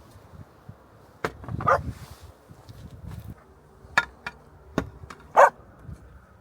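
A dog barking a few separate short barks, the loudest near the end, with a few sharp clicks in between.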